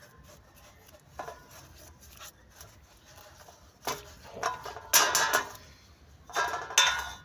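Liquid sloshing and a sponge scrubbing a sooty intake pipe and throttle body in an enamel basin of dirty cleaning fluid. It comes as a few short, noisy bursts in the second half, after a quiet start.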